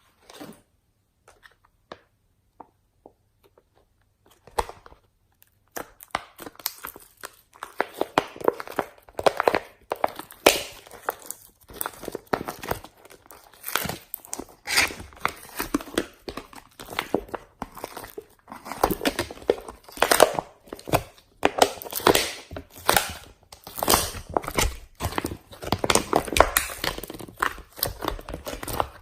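Gold slime being squeezed and stretched by hand, a dense irregular run of crackling and popping. It starts as a few faint clicks and thickens into steady crackling about six seconds in.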